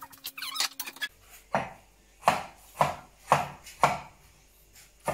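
Cleaver chopping ginger and garlic on a wooden cutting board: five sharp strikes about two a second, starting about a second and a half in, after a few light clicks.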